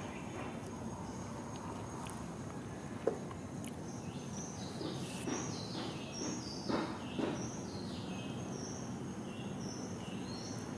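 Newborn long-tailed macaque crying: a run of high, falling squeals, loudest in the middle of the run. A steady high insect drone sits underneath.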